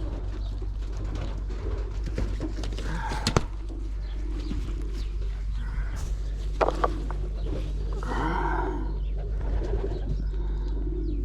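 Domestic pigeons cooing, with a few sharp knocks and a steady low hum underneath.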